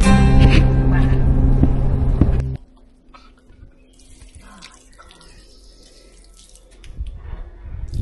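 Background music that cuts off abruptly about two and a half seconds in. It gives way to a quiet stretch of faint hiss, with a soft louder patch near the end.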